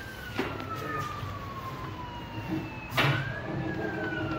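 Strong storm wind blowing in gusts. Over it a thin whistling tone rises quickly and then slides slowly down, twice, the second time just after a sharp knock about three seconds in.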